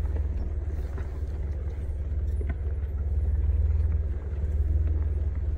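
Off-road 4x4 driving slowly over a desert trail, its engine and drivetrain a steady low rumble, with a few faint knocks.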